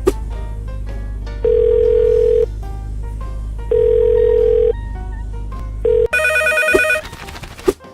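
Telephone ringing tone heard on the line: a plain beep of about a second, repeated about every two seconds, over a steady low hum. About six seconds in it gives way to a brief, busy electronic ringing sound.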